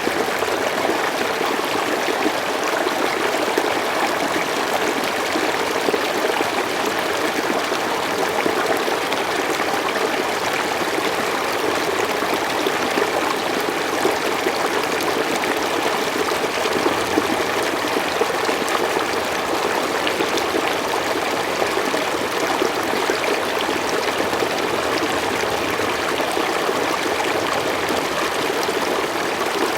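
Forest stream flowing over stones: a steady rush of running water with a constant bubbling trickle, even throughout.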